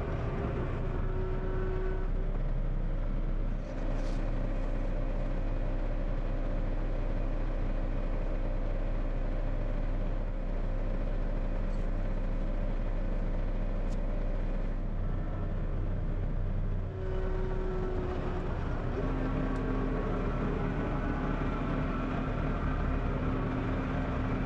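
A motor vehicle running steadily, with a constant low engine hum and road or running noise that barely changes.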